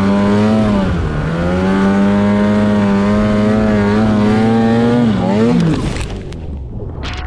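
Snowmobile engine running hard at a steady pitch, dipping briefly about a second in; near the end the revs waver and the engine cuts out about six seconds in. Then scuffing and a couple of sharp knocks as the sled tips over in deep snow.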